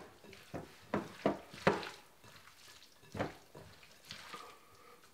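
A hand squeezing and mixing chicken pieces in green curry paste to marinate them: short wet squelching strokes, three in quick succession about a second in, then another a little after three seconds.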